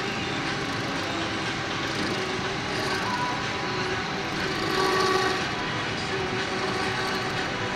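Metal lathe running and turning the copper commutator of a 3 kW DC series motor armature, with the cutting tool at the copper to skim off the burnt surface. The machine noise is steady, with faint whining tones coming and going, most plainly about three and five seconds in.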